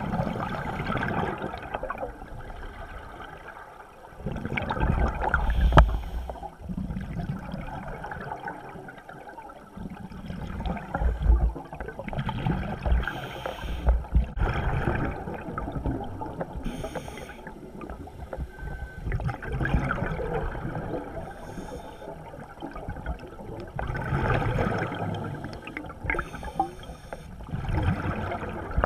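Scuba diver breathing through a regulator underwater: surges of exhaled bubbles every four to six seconds, with quieter spells between breaths.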